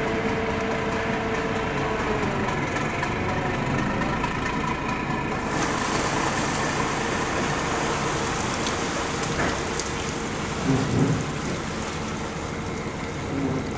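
Fishing trawler's diesel engine running steadily under load, with a hissing wash of churned water. There is a short louder sound about eleven seconds in.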